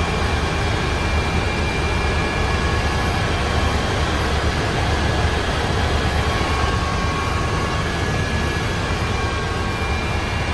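Helicopter in flight heard from inside the cabin: a steady drone of engine and rotor with a few thin, steady high whines on top.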